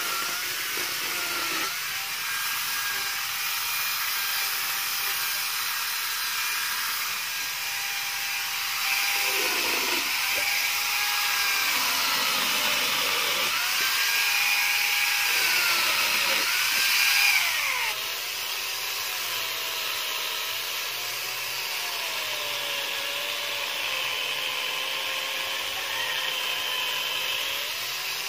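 Corded electric angle grinder cutting through mango branches. The motor's whine drops in pitch each time it bites into the wood and climbs back as it frees, many times over, with a rasping cutting noise. About two-thirds of the way through the sound steps down a little, and the motor's pitch then wavers slowly as it keeps cutting.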